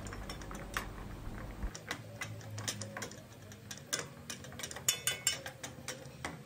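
Metal spoon stirring melting chocolate in a small stainless steel pot, clicking and scraping against the pot's sides in quick, irregular light taps, with a denser run of clicks past the middle.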